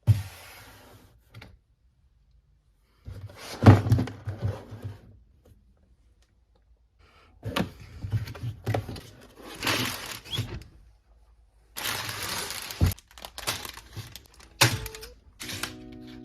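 A cardboard LEGO set box is opened and handled, with tearing, rustling and knocks in several separate bursts. Acoustic guitar music starts near the end.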